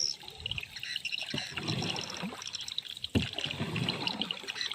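A paddle working in river water from a small boat: irregular splashing and trickling drips, with a sharp knock about three seconds in.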